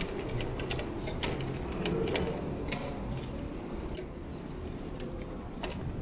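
Bicycle ticking and clicking as it rolls, irregular sharp clicks over a steady low rumble of road and wind noise.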